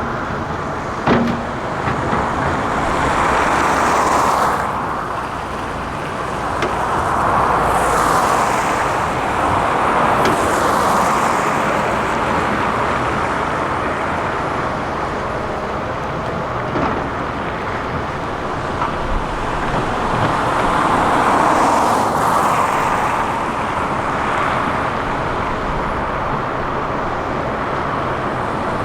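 Heavy diesel construction machinery running, the engine noise swelling and easing every few seconds as it works under load. A single sharp knock sounds about a second in.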